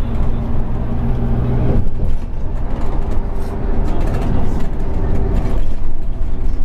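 Scania OmniCity N230UD double-decker bus under way, heard from inside the lower deck: diesel engine running with road and tyre rumble. Its steady engine note drops away about two seconds in, leaving mostly road noise.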